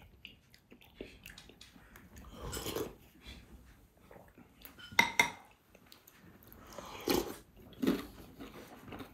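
Eating sounds at a table: a metal spoon clinking and scraping in a ceramic soup bowl, with slurping and chewing of beef soup, heard as a few separate sounds, the loudest about halfway through.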